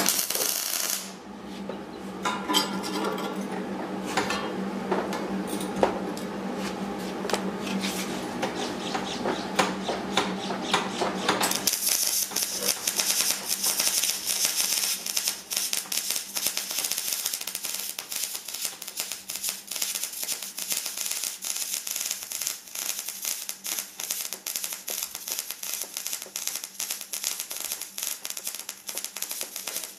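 MIG welding arc crackling steadily as the bead is laid along a steel T-joint. For the first eleven seconds or so a low hum sits under the crackle; then the hum drops out and the crackle turns sharper and hissier.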